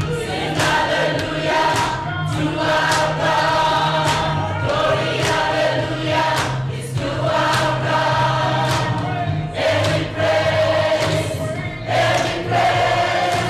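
A choir singing a gospel song, with sharp percussive hits recurring through it.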